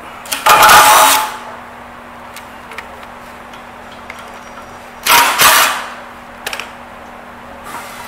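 Cordless drill-driver running in two short bursts, about a second in and about five seconds in, backing out the screws that hold a caster in a steel leg. A few light metal clicks come between the bursts.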